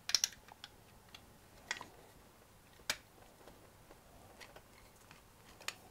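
Faint, scattered clicks and taps of a Raspberry Pi 4 circuit board being pressed and seated into its metal case. About five separate knocks, the loudest about three seconds in.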